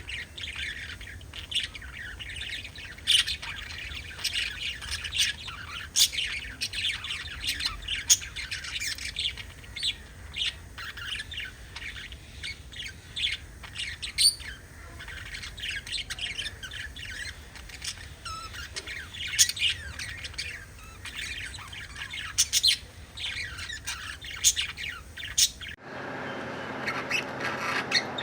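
A flock of budgerigars chattering, with many overlapping chirps and sharp squawks. Near the end the sound changes abruptly to another recording of dense chattering.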